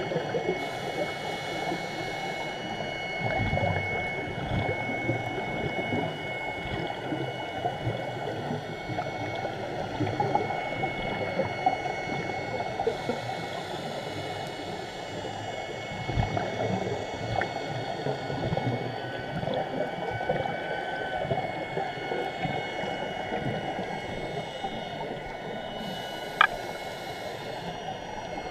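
Underwater ambience picked up by a GoPro in its waterproof housing while scuba diving: a steady low rushing noise with a crackling grain, a faint high steady whine over it, and one sharp click near the end.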